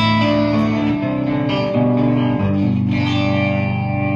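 Electric guitar played through an amplifier with effects and light overdrive: a sequence of sustained, ringing chords, each new one struck about every second.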